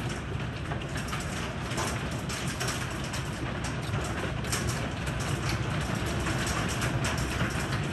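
Heavy rain mixed with hail falling on a wooden deck and yard: a dense, steady hiss crowded with many small sharp ticks of hailstones striking the boards.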